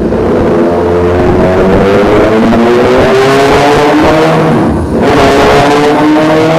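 Honda CBR1000RR-R SP's inline-four engine pulling on a dynamometer, its pitch climbing steadily. About five seconds in it drops briefly, then climbs again.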